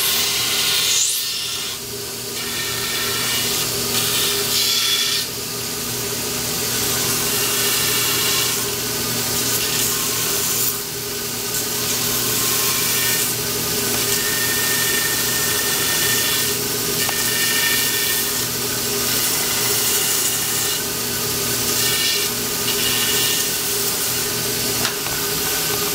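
Power grinder running with a steady motor hum, grinding into the fiberglass-backed wood of a take-down longbow's limb sleeve. The grinding noise swells and eases every few seconds as the piece is pressed against it and moved.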